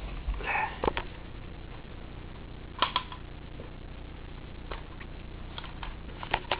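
Handling noise: scattered clicks and light knocks, including two sharp clicks close together about three seconds in, as an airsoft gun is handled.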